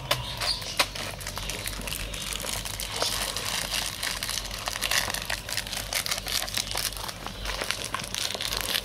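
Continuous crackling and rustling noise with many small clicks scattered through it, over a low rumble.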